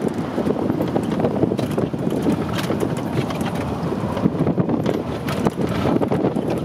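Ride in the open back of a truck on a bumpy dirt road: a steady rumble of engine and road noise with wind buffeting the microphone, and irregular knocks and rattles as the truck bounces over the bumps.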